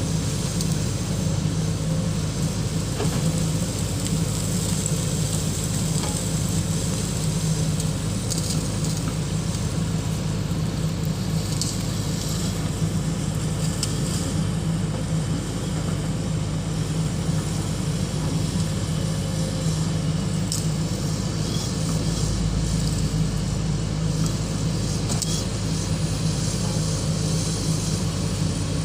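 Excavator's diesel engine running steadily, a continuous low drone, with a few faint clicks over it.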